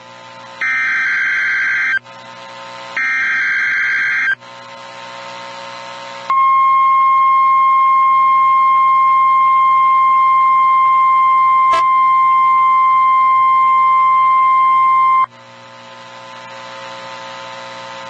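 NOAA Weather Radio emergency alert for a tornado drill test. First come the last two of three short buzzy digital header bursts, each about a second and a half long. After a brief hissy pause, the steady 1050 Hz warning alarm tone sounds for about nine seconds and then cuts off, leaving radio hiss. This is the attention signal that switches on weather alert receivers.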